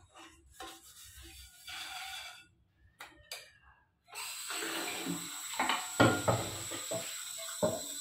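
Soapy scrubbing of a non-stick pan at a steel sink, then the kitchen tap turned on about four seconds in: water runs steadily into the pan. Several clunks come as the pan knocks against the sink and the pots in it.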